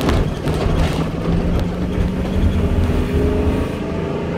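Truck engine idling with the air conditioning running inside the cab: a steady low rumble and hum.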